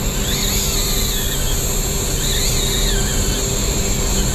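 Small spinning reel's drag screaming in a wavering high whine as a big fish strips line off it, over a steady engine hum.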